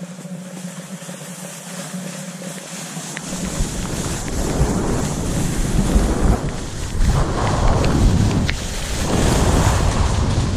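Wind buffeting the microphone and skis scraping over packed snow as the skier runs downhill. It is quieter at first, then starts in heavily about three seconds in and grows louder, swelling and easing with the turns.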